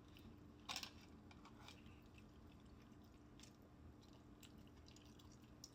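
Faint chewing of fried chicken, close to the microphone, mostly near silence with a few soft mouth clicks; the clearest comes just under a second in.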